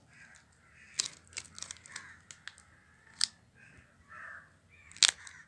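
Glossy black plastic chocolate-bar wrapper crinkling as it is handled and turned over, with three sharp crackles, the loudest near the end. Faint repeated calls sound in the background.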